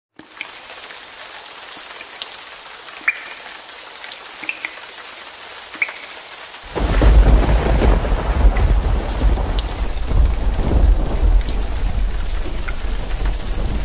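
Steady rain hiss with a few faint short high chirps, then a thunderstorm breaks in suddenly about halfway: a deep, heavy thunder rumble over loud rain that carries on.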